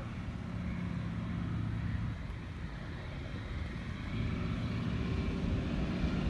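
PZL-Mielec An-2's nine-cylinder ASz-62IR radial engine running steadily as the biplane comes in low on approach, growing louder about four seconds in as it nears.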